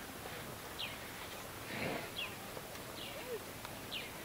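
A bird calling in short high chirps, about one a second, over a quiet outdoor background. A brief rushing noise comes about two seconds in.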